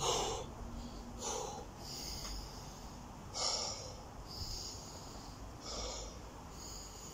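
A man breathing hard and fast, loud breaths roughly every second or so: winded from burpees.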